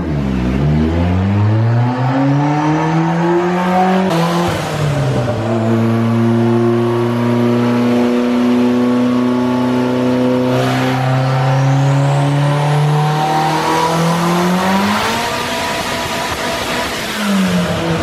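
Turbocharged car engine on a chassis dyno during a full-throttle power pull: revs climb for a few seconds, dip sharply about four seconds in, hold steady, then climb again with a faint rising turbo whistle. The throttle is lifted for the last few seconds and the revs fall.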